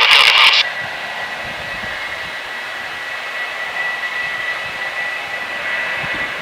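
Embraer Praetor 600 business jet's Honeywell HTF7500E turbofans giving a steady high whine over a rushing hiss as the jet rolls along the runway. A brief loud burst of noise comes in the first half second.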